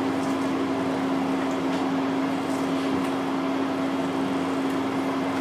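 Steady hum of running room equipment, an even noise with one constant low tone.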